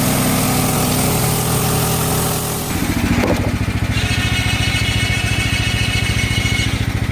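Portable bandsaw mill's gas engine running fast, then throttling back about three seconds in to a slow, lumpy idle with an even low pulse.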